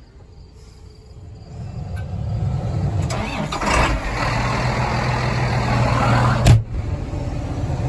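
Farm tractor engine being started: the starter cranks for a couple of seconds, then the engine catches and settles into a steady idle. A short sharp thump about six and a half seconds in.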